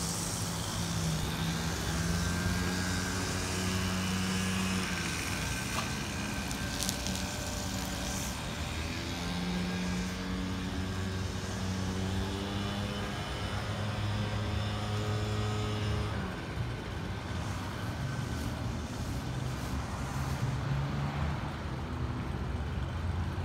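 A low, steady engine hum of a running motor vehicle, its pitch shifting up and down every few seconds, with a few faint clicks.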